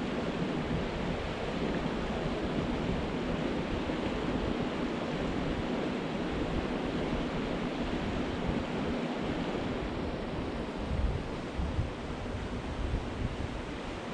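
Steady rushing of a small river flowing over a shallow riffle, with wind buffeting the microphone in gusts in the second half.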